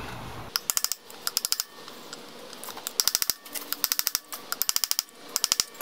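Quick runs of light metallic clicks and taps from hand tools, a chisel, hammer and small wrench, working the bend-tab washer on a motorcycle's center clutch nut. There are about six bursts, each of rapid, evenly spaced clicks.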